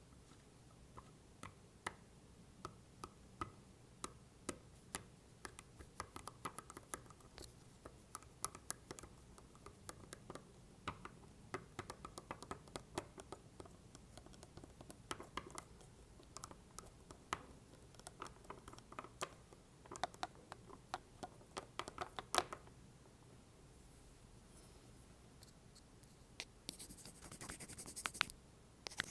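Apple Pencil tapping and scratching on a plastic AirPods case: quick, irregular, light clicks, with a short stretch of soft hissy scratching near the end.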